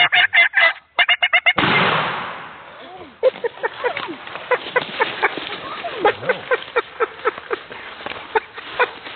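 Wild turkeys calling at close range: a loud, fast, rattling gobble at the start, a sudden rush of noise about one and a half seconds in that dies away over a second, then a long string of short, sharp clucks.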